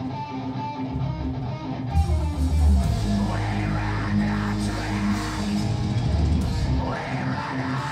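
Melodic death metal band playing live: distorted electric guitars, bass and drum kit. A sparser passage opens, then the full band with drums comes in about two seconds in.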